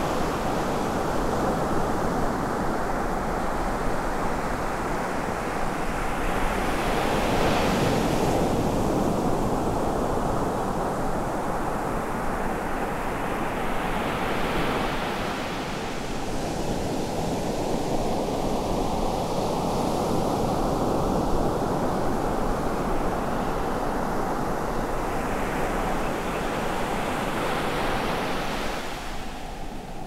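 Ocean surf breaking and washing up a sand beach: a continuous rush of white water, swelling into a louder hiss each time a wave breaks, every several seconds.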